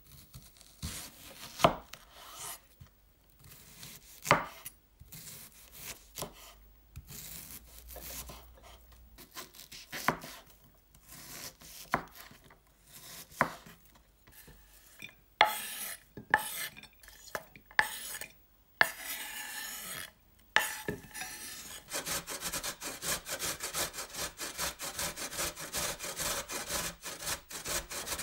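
Scattered knocks and scraping strokes, then, from about three-quarters of the way in, a run of quick, even rasping strokes.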